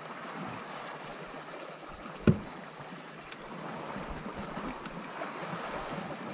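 Small waves lapping and washing against a rocky shore, steady throughout, with one sharp knock a little over two seconds in.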